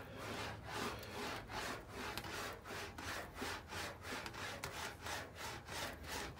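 Sheet aluminium being rolled back and forth through an English wheel: a rhythmic rasping swish about three times a second as the panel is pushed between the wheels, stretching the metal to raise a curved area.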